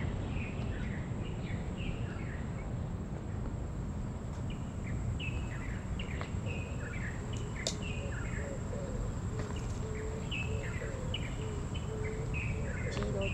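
Birds chirping in short, repeated downward-slurred phrases over a steady low background rumble, with a lower repeated call joining about halfway and a faint steady high tone.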